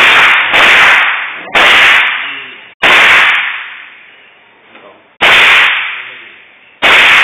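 .22 rimfire rifle fired six times at uneven intervals, each sharp crack trailing off in a long echoing decay; the first two shots come about half a second apart.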